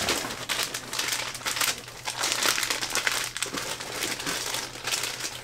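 Plastic soft-bait packs crinkling and rustling as a handful of bagged stick baits is rummaged through and pulled from a box, with irregular crackles throughout.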